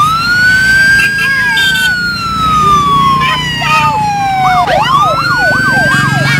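Bus 'telolet' horn sounding: a long tone swoops up, then slides slowly down for about four seconds. Near the end a fast warbling wail starts, over the rumble of the bus engine.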